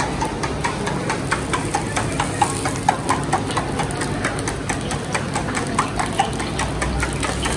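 Metal spoon clinking rapidly against a steel bowl while eggs are whisked, several strokes a second, over a steady low rumble.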